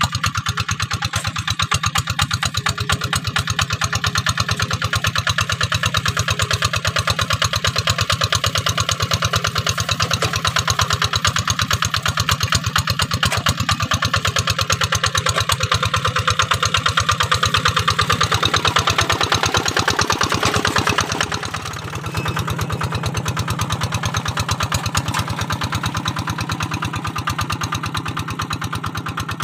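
Kubota RD 85 single-cylinder diesel engine of a Quick G1000 Boxer hand tractor running steadily under load as it pulls a moldboard plough through dry soil, with a fast, even chug. The sound dips briefly about two-thirds through, then carries on a little quieter.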